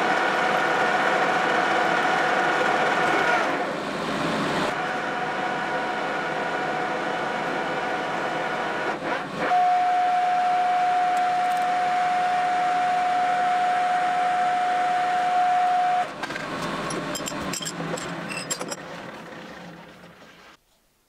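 Metal lathe running while a thread die cuts a thread onto the end of a spinning steel bar, with a steady gear whine. About two-thirds of the way through the running drops, a few light clicks follow, and the lathe runs down to a stop near the end.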